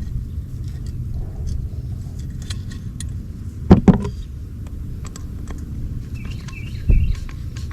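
Small metal mounting connectors and screws being handled against a plastic weatherproof outlet box: light clicks and clinks, two sharp knocks close together about halfway through, and a softer thump near the end, over a steady low rumble.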